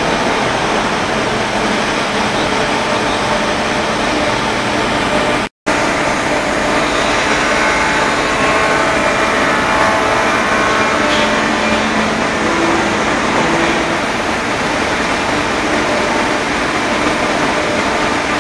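IMA BIMA 810 CNC woodworking machining centre running steadily: a loud, even spindle and dust-extraction noise with a faint whine as it machines a wood panel. The sound cuts out for a split second about five and a half seconds in.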